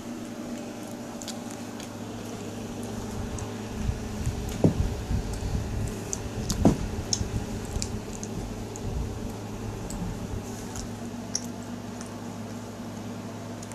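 Close handling noise of a microphone being rubbed and scuffed, with scattered light clicks and two louder knocks about four and a half and six and a half seconds in, over a steady low hum.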